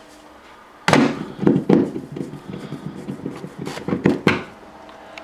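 A run of sharp clicks and knocks on hard plastic, starting about a second in and stopping after about three and a half seconds, as the fridge's plastic fan tower cover is handled and its screws are put back in.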